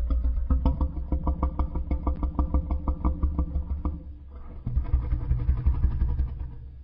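Engine-like low rumble pulsing in fast, even beats, dropping away briefly about four seconds in before resuming, then fading near the end.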